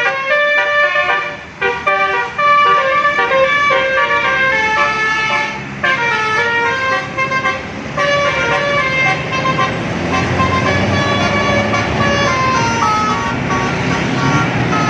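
Bus musical 'telolet' air horn (basuri type) playing a quick tune of stepped horn notes. About eight seconds in, the tune gives way to a heavy low engine rumble with a few fainter horn notes over it.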